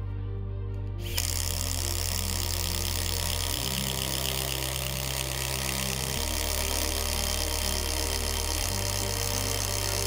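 Makita XGT 40V GDT01 cordless impact driver starting up about a second in and then running continuously under load, hammering as it drives a 1-1/2-inch spade bit through a wooden beam. Background music plays underneath.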